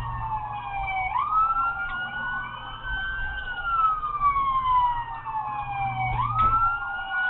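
Police car siren on a slow wail: the pitch climbs quickly about a second in and again near the end, and glides slowly down in between, over a steady low hum.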